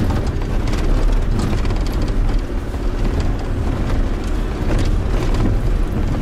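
Safari vehicle driving, heard from inside the cabin: a steady low rumble of engine and tyres, with scattered short knocks and rattles.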